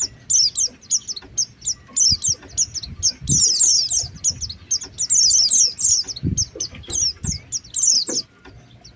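White-eyes (pleci) chirping: a fast, continuous chatter of short, high, down-slurred notes in clusters. It is the pleci call used as a lure sound to draw wild white-eyes in. A few dull low thumps sound beneath it, and the chirping stops shortly before the end.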